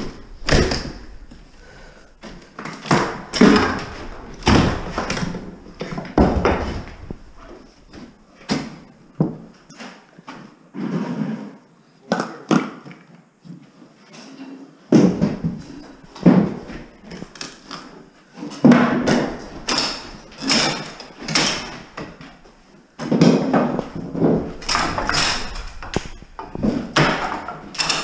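Wooden maple stair spindles and rail being wrenched and knocked loose by hand: repeated knocks, cracks and clatters of wood, coming in clusters with short pauses between them.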